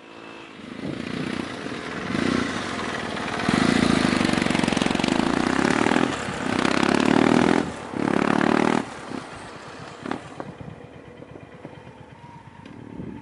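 Kawasaki W650 motorcycle engine revved in a series of surges, the longest held for about two and a half seconds. It falls away about nine seconds in, leaving a much quieter background with a few sharp clicks.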